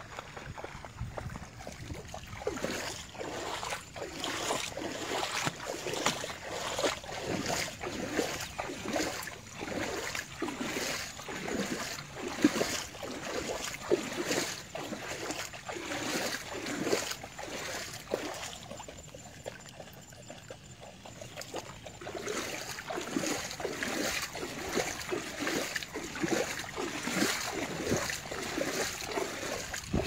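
Steps wading through shallow floodwater, a splashing slosh about every half second to a second, easing off for a few seconds past the middle.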